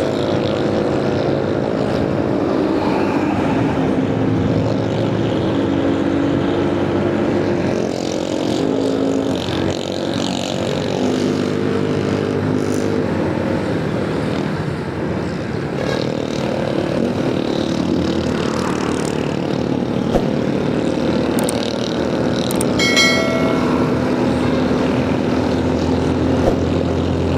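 Motorcycle engine running while riding in stop-and-go traffic, its pitch rising and falling in the first half and then settling into a steady low drone. A short honk-like tone sounds about three-quarters of the way through.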